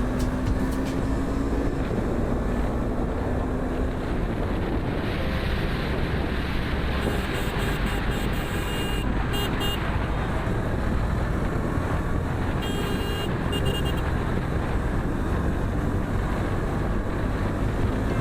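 Motorcycle on the move: steady wind rush on the microphone over engine and road noise.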